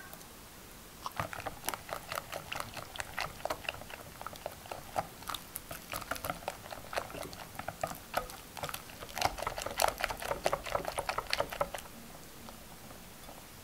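Hand wire whisk stirring a thick cream cheese and yogurt filling in a bowl: rapid, irregular wet squelching and clicking strokes. They start about a second in, are loudest shortly before the end and stop near the end.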